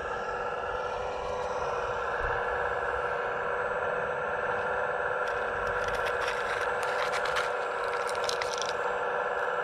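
Hydraulic pump of an RC Hitachi ZX135US model excavator whining steadily, with the bucket scraping and clattering through broken pavement rubble from about five seconds in until near the end.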